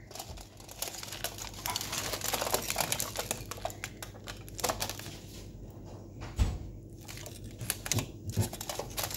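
Aluminium foil wrapped over a container crinkling and crackling as fingers pinch, lift and fold it, in irregular bursts. A couple of soft bumps come near the end.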